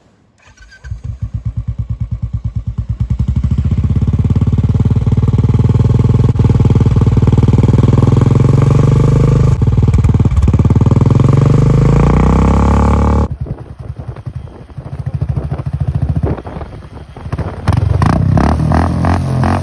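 Royal Enfield Classic 350 single-cylinder engine through a Red Rooster aftermarket silencer, three years in use: a slow, even exhaust thump at idle that builds into a louder, faster run as the throttle is opened. About two-thirds of the way in it drops away suddenly, then rises and falls unevenly before getting loud again near the end.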